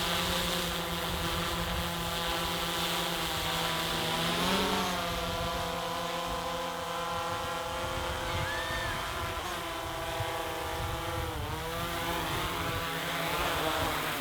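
DJI Mavic 3-series quadcopter flying, its propellers giving a steady hum of several stacked tones. The pitch briefly swings about four and a half seconds in and again about eleven and a half seconds in.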